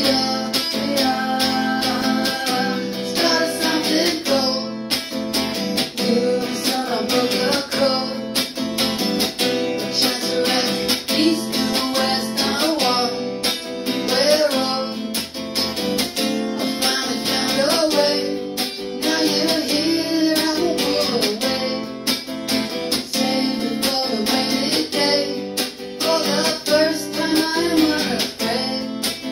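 A man singing while strumming an archtop hollow-body guitar.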